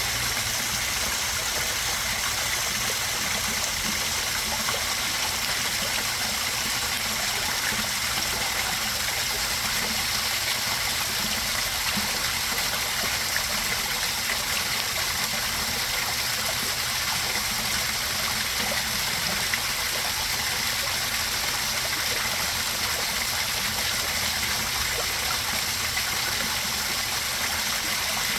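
Backyard koi pond waterfall: water falling and splashing steadily into the pond.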